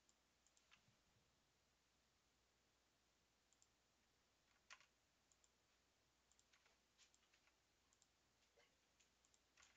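Very faint, irregular clicks of a computer mouse and keyboard used at a desk, about a dozen scattered through, with one louder click about five seconds in, over a faint room hiss.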